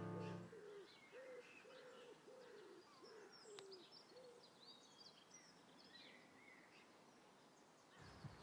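Faint birdsong: a low cooing call repeated about seven times over the first few seconds, with small birds chirping faintly and higher. A piano tune dies away in the first half second.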